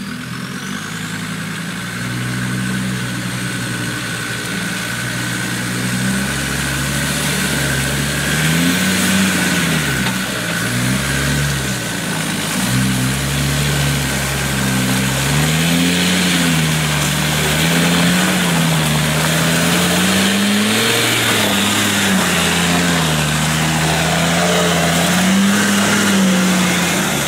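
Land Rover Discovery 2 engine labouring at low speed up a rutted hill, its revs rising and falling again and again as the wheels drop into holes and lose and regain grip, with no centre diff lock so the traction control is doing the work.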